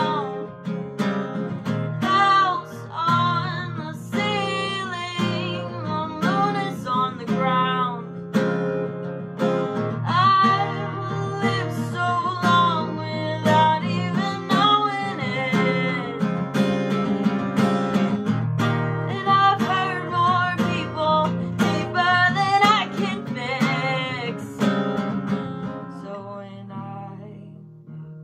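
A woman singing over her own strummed acoustic guitar. The singing and playing ease off and grow quieter near the end.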